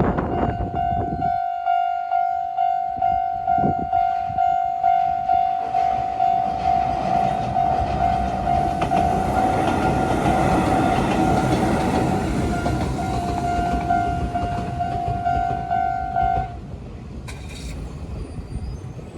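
Railway level crossing warning bell ringing in a steady repeating electronic ding while a Kōnan Railway 7000-series electric train rumbles and clatters over the crossing. The train's noise swells in the middle and fades, and the bell cuts off suddenly near the end as the crossing clears.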